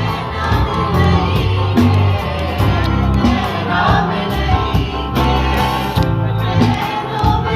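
Live band playing a song: several voices singing together at microphones over a drum kit and deep, sustained bass notes.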